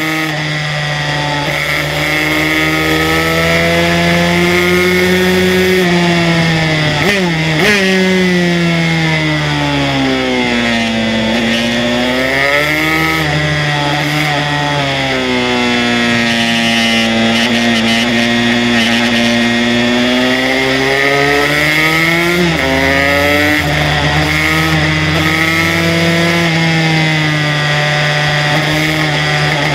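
Aprilia RS125 two-stroke single-cylinder engine, fitted with an HTM Racing 144cc kit, at full race revs on track. The revs climb and fall repeatedly as the bike brakes, changes down and accelerates through the gears, with quick sharp dips at gear changes about a quarter of the way in and again past two-thirds.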